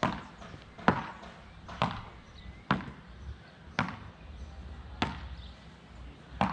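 Beach tennis paddles striking the ball in a volley rally: seven sharp hits, roughly one a second.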